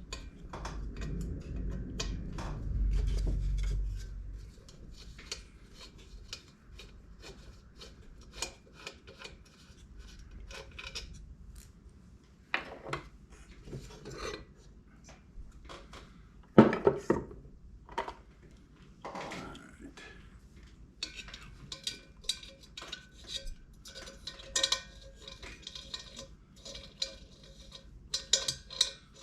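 Hand tools and small metal heater parts clinking, clicking and tapping at irregular intervals during reassembly of a diesel heater, with a low rumble in the first few seconds and one louder knock about sixteen seconds in.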